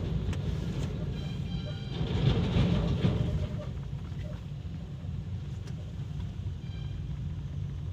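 Low, steady rumble of engines and heavy trucks heard from inside a car's cabin in slow traffic, swelling louder about two seconds in. A brief high-pitched tone sounds twice, once early and once near the end.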